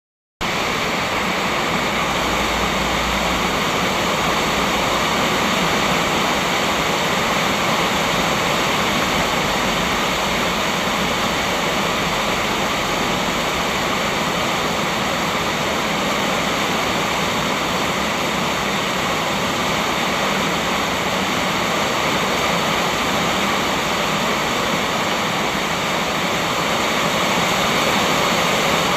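Rain falling steadily: an even, dense hiss of rain that holds at the same level throughout.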